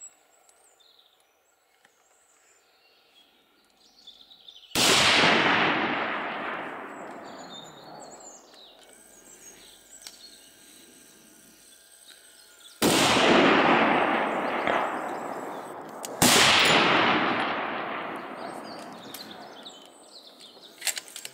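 Three scoped bolt-action rifle shots, each a sudden report followed by a long echo that dies away over several seconds. The first comes about five seconds in, the other two about three and a half seconds apart in the second half.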